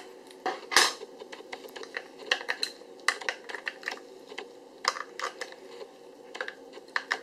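AA batteries being fitted into the battery compartment of a Lifeloc FC5 breathalyzer: a run of small clicks and taps of metal cells against plastic and the spring contacts, the loudest about a second in.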